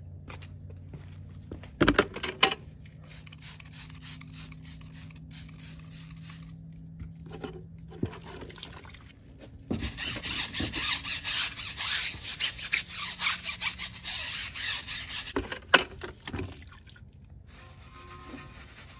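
Stiff-bristled brush scrubbing a soapy car tyre and wheel, in quick back-and-forth strokes of about three or four a second, loudest for about five seconds in the middle. A short clatter about two seconds in.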